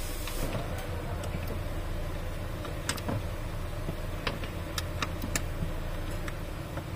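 Sharp metallic clicks and taps from hands working on a clutch pedal bracket and its return spring under a dashboard, heard over a steady low hum.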